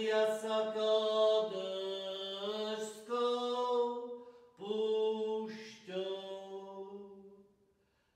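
A single unaccompanied man's voice chanting psalm verses in Slovak, held on a few sustained notes that step up and down, with short breath breaks. It fades out near the end.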